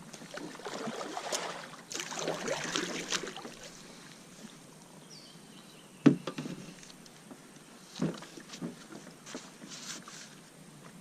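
Water splashing and sloshing around a kayak, then a sharp knock about six seconds in and a few lighter knocks, as gear bumps the kayak's hull.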